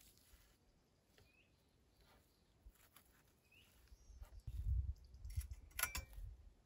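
Quiet woods with a small bird giving two short faint chirps. Then, from about two-thirds of the way in, low rumbling and rustling with a sharp crackle near the end, like gear or tarp being handled close to the microphone.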